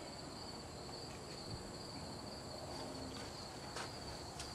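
Insects trilling steadily at a high pitch in the background, with a couple of faint taps near the end.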